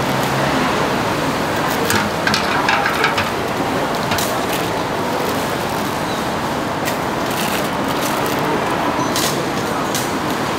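Steady background noise of a busy food stall, with scattered sharp clicks and knocks, a quick cluster of them about two to three seconds in.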